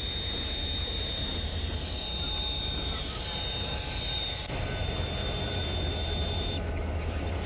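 Steam train running, with a low rumble under a steady high-pitched squeal. The sound shifts abruptly about four and a half seconds in, and the squeal stops suddenly near the end.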